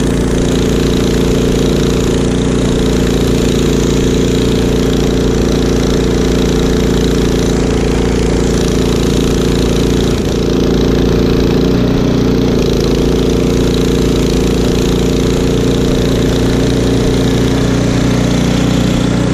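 Craftsman snowblower's small engine running steadily under load while it chews through deep snow and throws it out the chute. The engine note shifts slightly and gets a little louder about ten seconds in.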